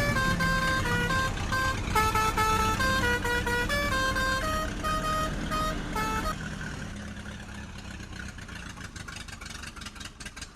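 A tune of short, horn-like notes plays over a steady low engine-like rumble; the tune stops about six seconds in, leaving a quieter rumbling with crackles.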